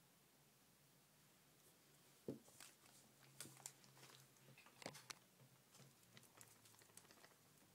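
Near silence for about two seconds, then a run of faint clicks, taps and rustles of handling at the table, the sharpest about two and five seconds in.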